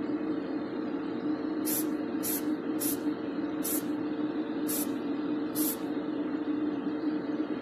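Aerosol can of Car Plan acrylic car paint sprayed in six short hissing bursts, a little under a second apart, over a steady hum.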